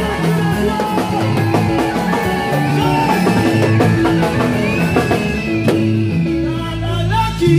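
Church band music, with a repeating bass line, drums and held instrument tones.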